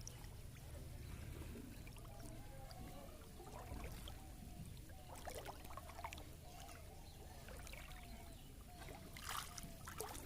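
Water sloshing and splashing, with a few sharper splashes about five seconds in and again near the end.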